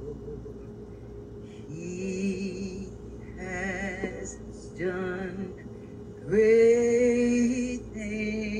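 A solo voice singing a slow worship song in long held notes with vibrato, the phrases broken by short pauses. About six seconds in comes the longest and loudest note, which opens with an upward swoop.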